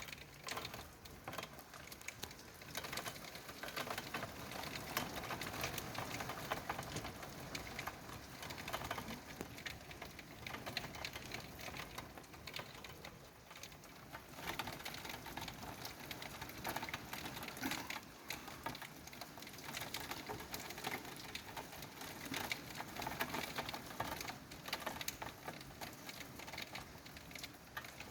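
Heavy thunderstorm rain striking a nearby hard surface as a dense, rapid ticking that swells and eases, dipping briefly about halfway through.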